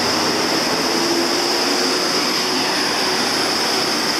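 Steady road traffic noise from cars and a bus passing close by on a multi-lane road, with a steady high-pitched hiss over it.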